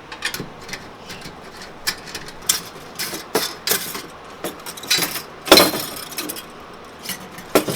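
Irregular metallic clicks and clinks of hand tools and small metal parts being handled, with one louder clank about five and a half seconds in.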